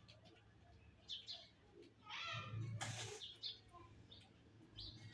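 Pet parrot chirping in short high notes, with a louder, harsher call about two to three seconds in.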